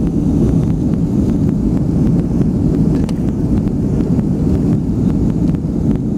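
Jet airliner's engines and rushing air heard inside the cabin during the climb just after takeoff: a steady, loud, low rumble.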